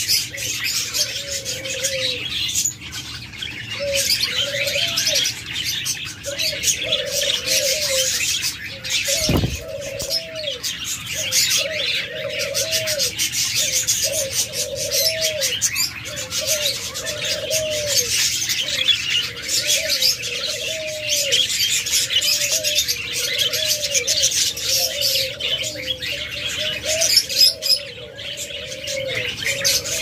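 A flock of caged budgerigars chattering and chirping without a break, with a dove cooing underneath in a steady repeated rhythm, about one coo a second.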